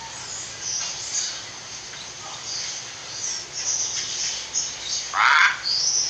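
Birds calling: faint high chirps scattered throughout, and one louder, harsh call about five seconds in.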